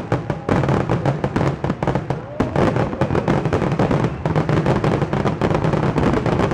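Fireworks finale barrage: a dense, unbroken volley of shell bursts and crackling reports, many a second.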